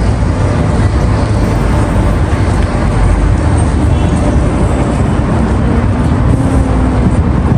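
Street traffic noise: cars driving past on the road, with a steady low rumble.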